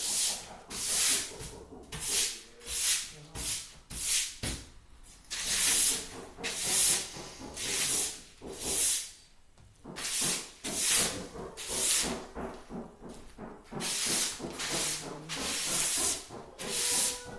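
A broom sweeping a hard floor in regular strokes, about one scratchy swish a second.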